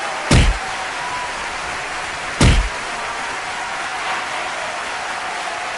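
Two short, heavy thuds about two seconds apart, over a steady hiss.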